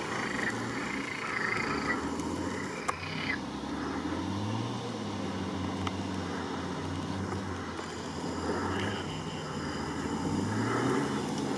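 An off-road 4x4's engine revving up and down several times as it works in deep mud.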